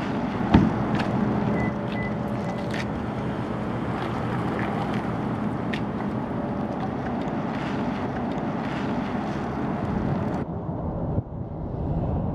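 Steady rushing road and traffic noise with a faint low hum and a few faint clicks. About ten seconds in it turns duller, as road noise inside a moving car's cabin, then cuts off abruptly near the end.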